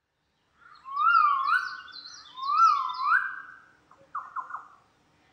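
A bird calling: two loud whistled phrases, each made of upward-sliding notes, then three short quick notes about four seconds in.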